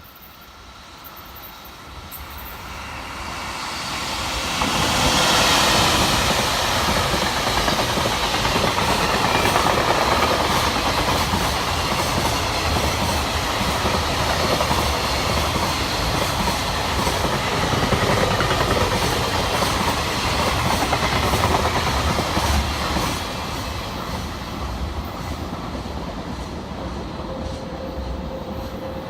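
JR Freight EF65 electric locomotive passing with a train of Koki container wagons. The sound builds over the first few seconds and is loudest as the locomotive goes by about five seconds in. Then comes the steady rumble and clickety-clack of the wagons' wheels over the rail joints, easing off a little after about twenty-three seconds.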